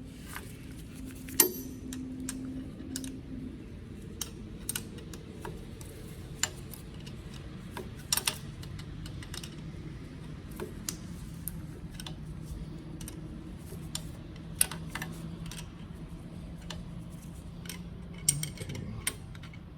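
Scattered light metallic clicks and clinks of a wrench on a steel-braided oil line fitting as it is threaded and snugged down, over a steady low hum.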